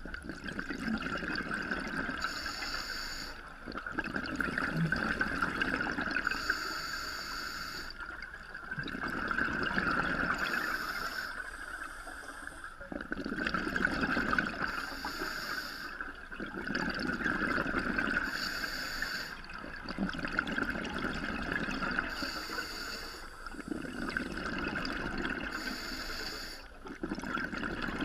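Scuba diver breathing through a regulator underwater, heard through the camera housing. A hissing inhale alternates with a longer rumble of exhaled bubbles, about one breath every four seconds, over a steady high hum.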